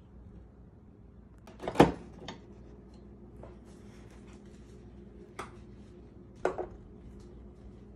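A sharp knock about two seconds in, followed by a few lighter taps, over quiet room tone.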